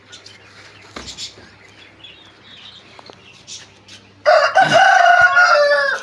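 Rooster crowing once, a long crow that starts about four seconds in and is the loudest sound, after a few seconds of faint background with a single knock.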